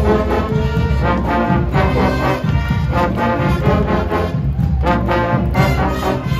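High school marching band playing live: trombones, trumpets and tuba in a loud brass passage.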